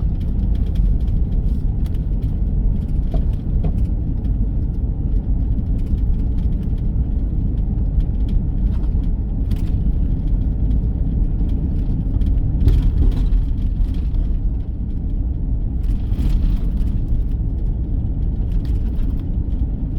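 Steady low road and engine rumble heard from inside a moving vehicle's cabin, with a few brief faint rattles or scuffs.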